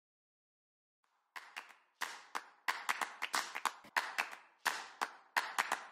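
A quick, irregular run of sharp clap-like hits, starting about a second and a half in and continuing steadily after that.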